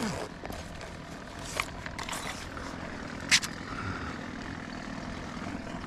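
A distant motor droning steadily, with a few short sharp clicks, the loudest about halfway through.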